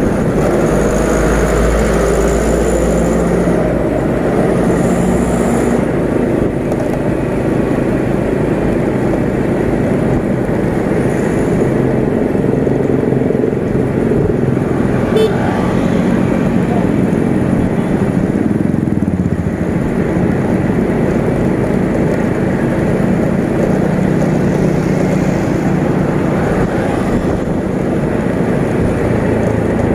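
Motorcycle running steadily while being ridden through road traffic, with the noise of other vehicles around it.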